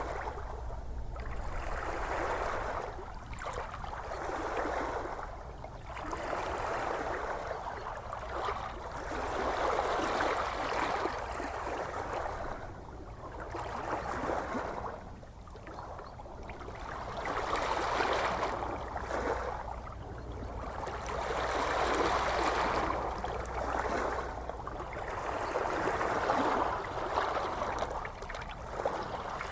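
Gentle ocean waves washing in, a hiss of water that swells and fades every few seconds over a steady low rumble.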